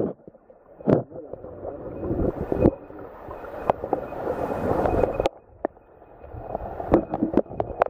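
Muffled water sound heard through a camera held underwater in a rocky stream, with sharp clicks and knocks scattered through it and coming more often near the end.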